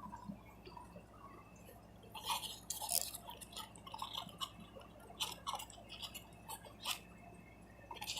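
Homemade glue slime being handled by hand: faint, irregular wet sticky clicks and crackles, starting about two seconds in.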